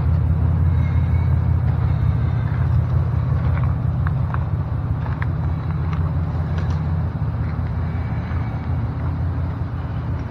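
Steady low rumble of a car on the move, road and engine noise, with a few faint clicks and knocks.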